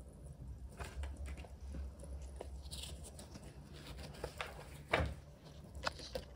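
Quiet room with a steady low hum and scattered faint clicks and rustles of small handling noises; the loudest click comes about five seconds in.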